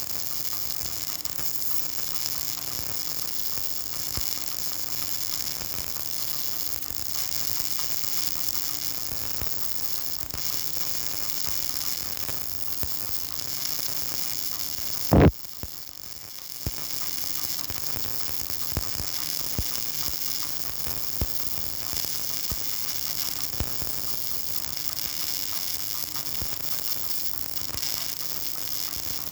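Electric arc welding on a 3G (vertical) test weld: a steady crackling hiss of the arc, thick with fine irregular clicks, over a faint hum. About halfway through there is one loud short knock, and the crackle drops away for about a second before it comes back.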